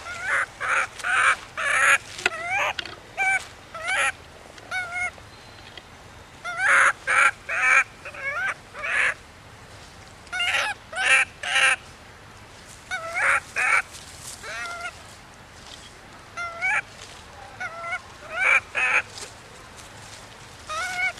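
Baby macaque crying: short, wavering squealing calls that come in quick clusters of several at a time, with pauses of a second or two between clusters. It is an infant's distress crying, calling for care.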